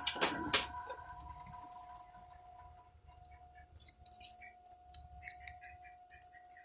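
Three sharp metallic clinks of metal tooling and parts being handled at a metal lathe, within the first second, then scattered light metallic ticks and clicks. A faint machine hum fades out over the first couple of seconds.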